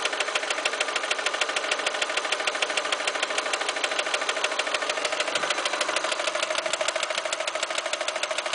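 Opel Astra G's 1.6 Z16XE four-cylinder petrol engine idling with a rapid, even knock running through it.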